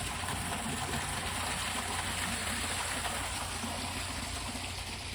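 Water rushing steadily through a canal lock, with no let-up.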